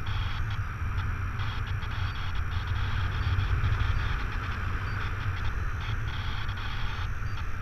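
Airflow of a paraglider in flight buffeting the pilot's camera microphone: a steady low wind rumble with frequent irregular faint crackles.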